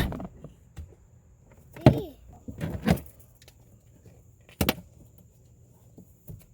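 Four sharp knocks and clacks, at the start and about two, three and four and a half seconds in, from parts of a Power Wheels ride-on car being handled during a foot-pedal switch repair.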